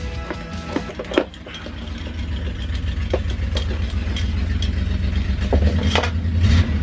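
Truck engine running, its low rumble growing louder toward the end, with a few light clicks and knocks over it.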